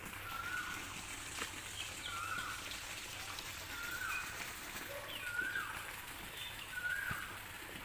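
A bird repeats a short call about once a second, over faint rasping from the small saw blade of a Victorinox Huntsman pocket knife cutting through a thick, hard branch.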